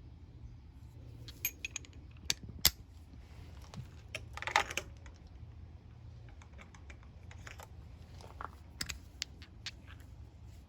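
Scattered sharp clicks and light metallic knocks, like small tools and parts being handled, with a brief scraping rustle about four and a half seconds in, over a steady low hum.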